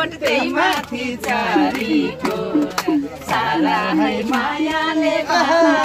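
A woman singing a Nepali dohori folk song, with hand claps keeping a steady beat under the voice.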